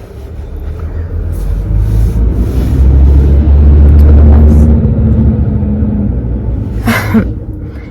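A loud low rumble that swells to a peak about four seconds in and then eases off, with a short sound rising in pitch about seven seconds in.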